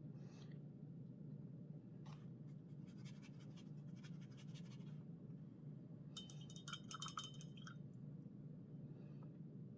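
Faint scratching of a paintbrush stroking watercolour across paper, with a brief run of light clinks about six to seven seconds in, over a low steady hum.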